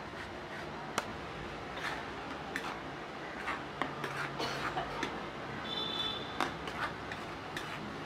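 Metal spatula clicking and scraping on a flat tawa griddle as gravy with grated cheese is worked around it, in irregular sharp taps over a steady background hiss. A short high squeak comes about six seconds in.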